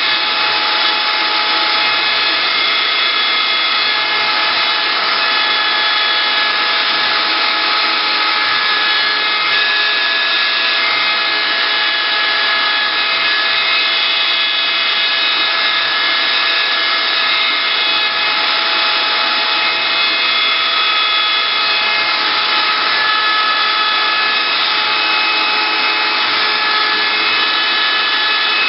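CNC wood-carving router running: a steady, loud spindle whine over a cutting hiss, its whine tones coming and going as the machine carves wood.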